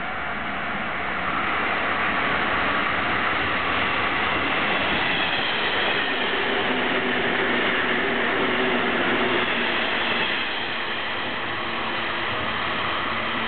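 JR 485 series limited express electric train passing through the station without stopping: a steady rush of wheels on rail and running gear with a few held tones, loudest while the cars go by and easing about ten seconds in as the train pulls away.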